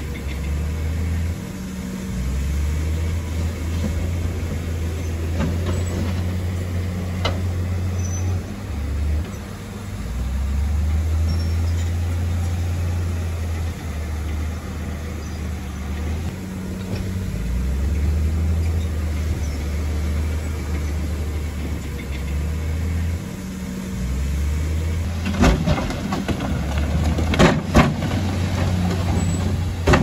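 Bulldozer's diesel engine running, its low drone swelling and dropping every few seconds, with a few sharp knocks near the end.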